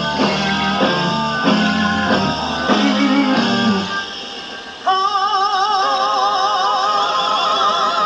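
A hard rock band playing live, from a 1970 concert recording. A chopped, repeated guitar-and-bass riff drops out about four seconds in. About a second later a high held note with heavy vibrato enters and sustains.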